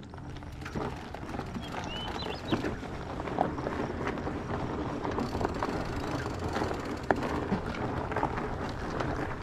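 Fat bike rolling along a dirt track: its 4.8-inch tyres running over dirt and small stones, with steady rushing noise and scattered sharp clicks and rattles from the bike, one louder click about seven seconds in.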